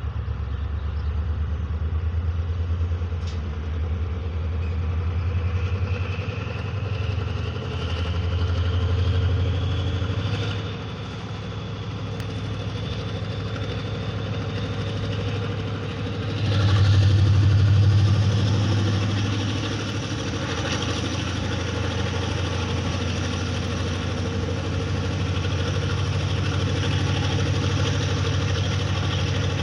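ZCU-30 (GE U30C) diesel-electric locomotive's engine running with a deep steady hum and a whine that rises in pitch, with a louder surge just past the middle as it works to pull the train away. The train is barely moving, which the onlooker takes for some engine issue.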